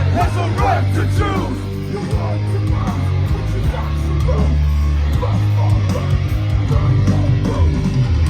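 A heavy hardcore band playing live and loud: distorted electric guitars and bass churning out a steady, dense riff.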